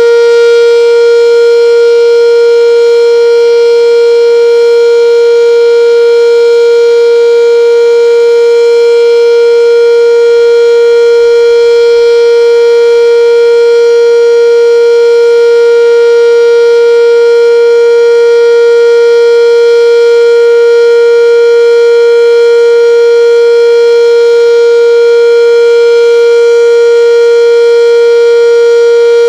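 Sentry 10V outdoor warning siren sounding its full alert as a loud steady tone, holding one pitch with no rise or fall.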